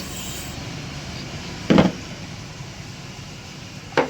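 A sharp knock of work handling about halfway through and another near the end, over a steady low hum.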